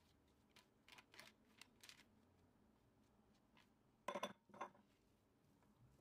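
Soft rustles and light clicks of grated zucchini sliding out of a plastic bowl onto dough, then a short cluster of sharp knocks about four seconds in as a silicone spatula scrapes and knocks the bowl clean.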